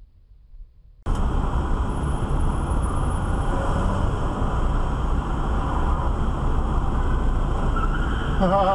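Steady vehicle and road noise with a heavy low rumble, cutting in abruptly about a second in.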